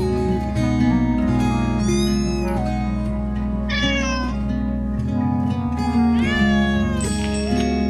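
A cat meows three times, high calls about two, four and six seconds in, the middle one falling in pitch, over background music with steady held notes.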